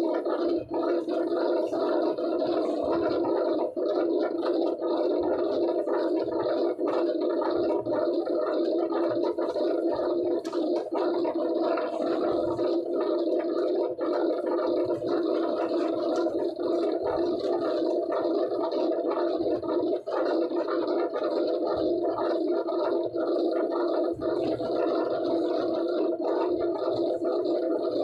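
Steady drone of running workshop machinery, holding several even tones without a break, with faint scattered clicks and scrapes as corrugated board sheets are handled.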